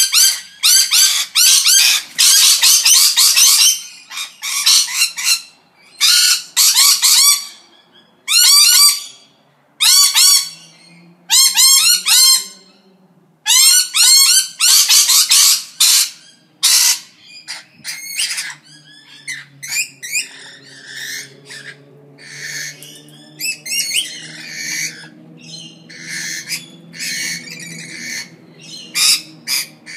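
Parrots squawking and calling: loud bursts of rapid, repeated harsh calls, each burst about a second long, through the first half, then softer, scattered calls over a low steady hum.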